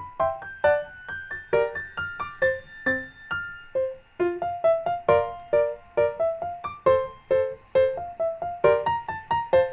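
Background music: a solo piano playing a quick, lilting tune of single notes, several to the second.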